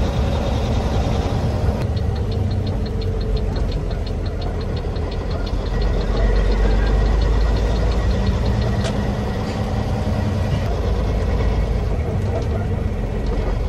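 Diesel engine of a 2004 Volvo VN semi tractor running at low road speed, heard from inside the cab as a steady low rumble. From about two seconds in, a fast, even ticking runs for several seconds over the engine.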